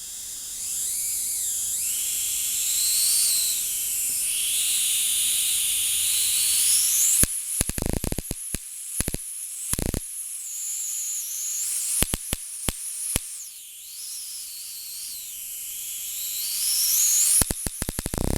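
20 kV voltage-multiplier arcs discharging into saturated salt water: a continuous high hiss with a high whine that wavers up and down, broken by sharp snaps of the arcs, in a cluster from about seven to thirteen seconds in and again near the end.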